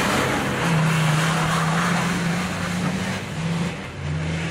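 Nissan Patrol Y60 off-road SUV's engine running at steady revs as the car slides sideways over snowy ground, with a hiss of tyres and thrown-up snow and mud under it.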